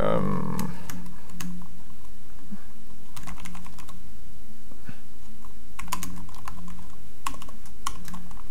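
Typing on a computer keyboard: a few short runs of key clicks with pauses between them.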